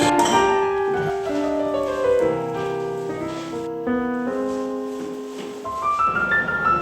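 Background music: piano notes and chords ringing and fading in a slow melody.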